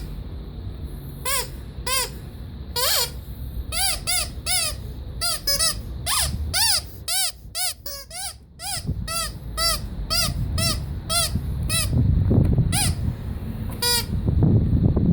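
Rubber squeaky toy squeezed over and over: a quick, irregular run of short squeaks, each rising and falling in pitch, most tightly bunched in the middle. A low rumbling noise builds under them over the last few seconds.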